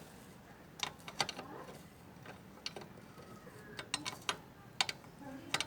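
About a dozen irregular sharp metallic clicks and taps from hand tools being worked on the scooter, some in quick pairs and runs.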